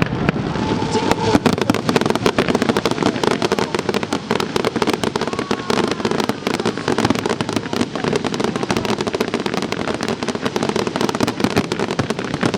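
Fireworks display in full barrage: a dense, unbroken run of rapid bangs and crackling.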